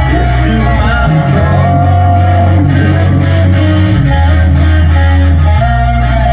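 Live country-rock band playing loudly, with guitar lines over held bass notes.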